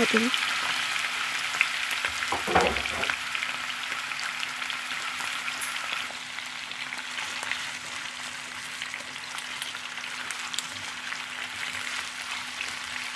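Chicken pieces marinated in turmeric and salt sizzling and crackling in hot oil in a wok, the sizzle easing a little after about six seconds. A brief knock about two and a half seconds in.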